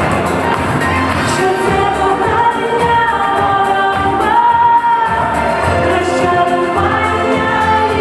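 Pop song playing: sung vocals carrying a melody over a band accompaniment with a steady beat.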